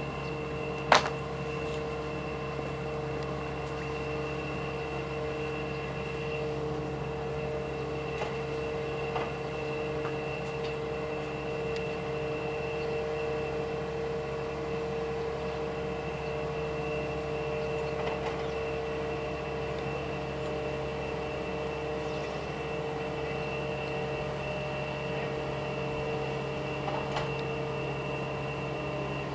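Steady, even mechanical drone of rail-laying machinery running on the track worksite, with a single sharp click about a second in.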